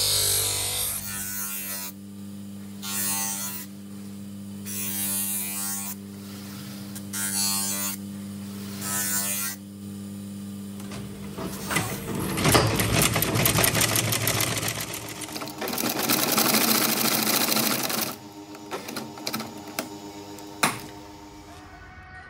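A bench grinder wheel hums steadily, and a leather sheath edge is pressed against it in several short scraping passes. About halfway through, a heavy sewing machine stitches the leather in a fast, continuous run of needle strokes for several seconds. A few scattered clicks follow near the end.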